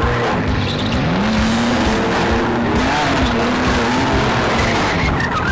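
Demolition drag race cars' engines running at hard throttle, their pitch rising and falling, over loud road and tyre noise.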